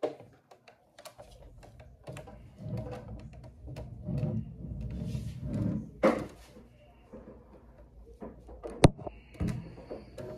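Scattered light knocks and clicks of kitchen handling, with a low muffled rumble in the middle and one sharp click near the end.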